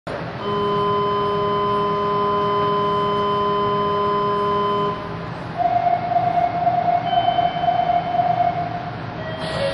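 Electronic signal tones at a subway platform. A steady chord of several held tones sounds for about four and a half seconds and cuts off suddenly. Then a single pulsing, wavering tone sounds for about three seconds, like a door-closing warning.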